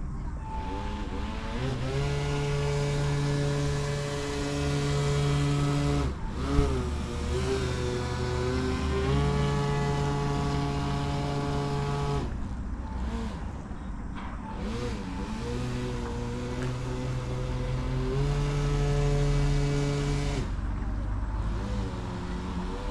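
The electric motor and air propeller of an Aquacraft Mini Gator Tours RC airboat running in about four throttle bursts: the whir climbs in pitch, holds steady for a few seconds, then drops off between bursts. A single sharp knock comes about six and a half seconds in.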